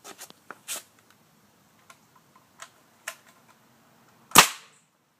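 A pellet gun fires once, a single sharp crack about four seconds in, after a few light clicks. No bottle burst follows the shot.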